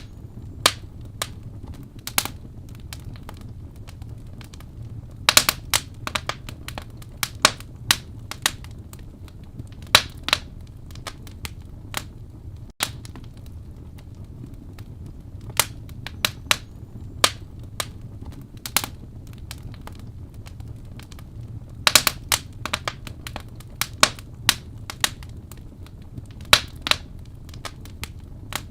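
Wood fire burning in a fireplace: a steady low rumble of flames with sharp, irregular crackles and pops from the burning wood, in clusters now and then.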